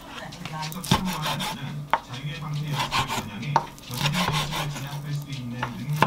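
Kitchen knife slicing raw chicken tenderloin on a wooden cutting board: drawn strokes through the soft meat with a few sharp knocks of the blade on the board.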